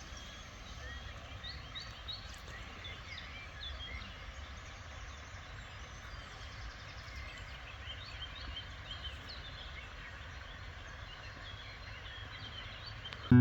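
Several small birds chirping and singing in short scattered calls over a steady low rumble.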